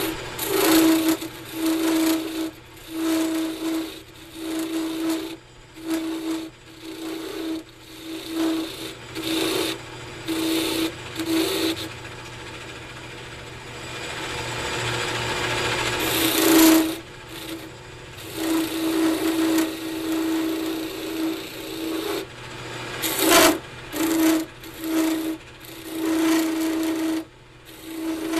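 Wood lathe spinning a cocobolo pen blank on a mandrel while a hand-held turning chisel cuts it in repeated short passes. Each pass gives a scraping rasp with a steady ringing note. Two longer, louder cuts come later on.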